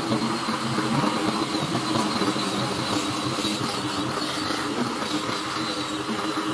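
Handheld electric disc sander running steadily with a motor hum and a faint high whine, its pad rubbing across a wooden tabletop.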